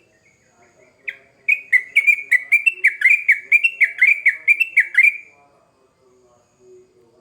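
Trucukan (yellow-vented bulbul) singing a rapid, bubbly run of repeated notes, about four a second. It starts about a second in and stops about four seconds later. Faint lower tones sound underneath.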